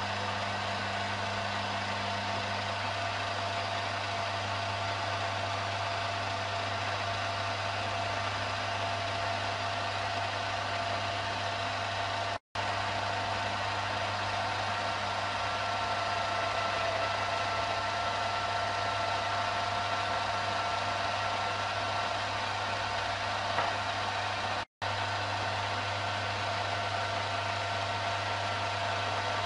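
Mini lathe running steadily, its motor whining at an even pitch over a hiss, as the tool turns the shoulder of a small baffle. The sound breaks off for an instant twice.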